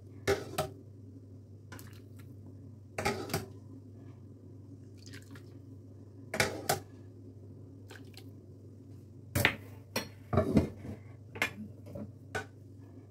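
Small dessert bowls of glass and plastic knocking and clinking as they are handled and set down on a wooden board: a dozen or so short, scattered knocks, bunched together about two-thirds of the way through. A steady low hum lies underneath.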